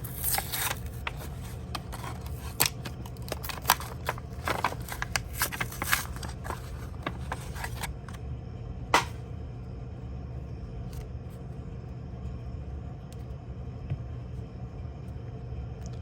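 Pokémon trading cards and their packaging being handled: quick rustles and clicks for the first half, one sharper click about nine seconds in, then only faint occasional ticks over a steady low hum.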